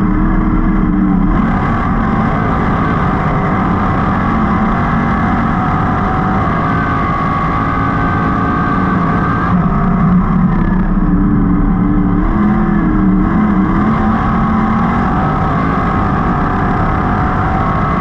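305 sprint car's small-block V8 running hard at racing speed, heard from the cockpit, its note dipping and climbing back a few times, most clearly past the middle.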